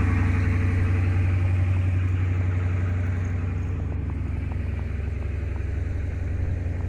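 A truck engine idling steadily, a low even hum that eases slightly partway through.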